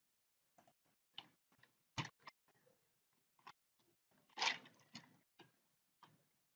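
Faint, irregular keystrokes on a computer keyboard as CSS code is typed, about fifteen separate clicks with one longer, louder noise about four and a half seconds in.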